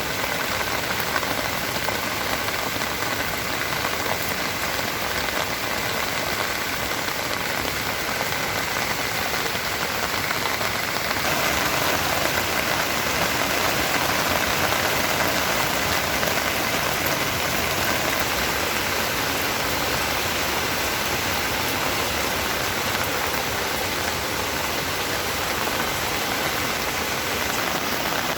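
Rain falling steadily, a dense even hiss of drops, growing somewhat heavier about eleven seconds in.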